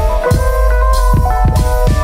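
Background music with a steady drum beat under held melodic notes.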